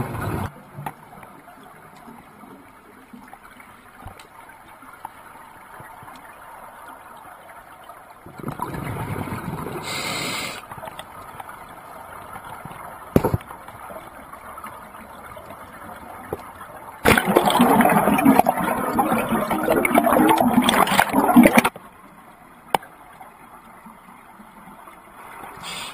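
Scuba diver's exhaled bubbles rushing out of a regulator, recorded underwater, coming in loud bursts several seconds apart with a faint steady hiss between; the longest and loudest burst lasts about four seconds, well after the middle. A single sharp click sounds about halfway through.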